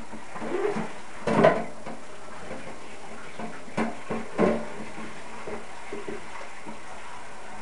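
Short knocks and clinks at a kitchen sink over a steady hiss, the loudest about a second and a half in and a few smaller ones later.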